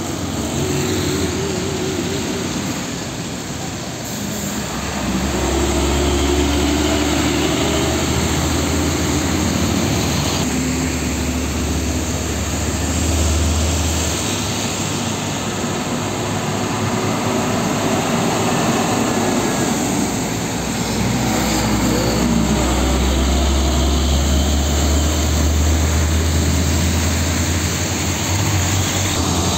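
Heavy diesel trucks, among them Hino Ranger 500s, driving past close by one after another: a deep engine drone over a steady wash of traffic noise. The drone swells twice, from about five seconds in and again from about twenty seconds in, as trucks pass.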